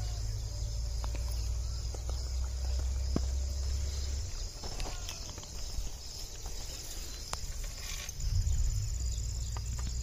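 Insects chirring steadily in a high, evenly pulsing band, over a low rumble, with a few faint clicks.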